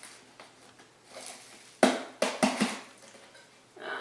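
Chips being worked out of a cardboard Pringles can tipped on its side: a faint rustle, then a sharp knock just under two seconds in and three lighter knocks close after it.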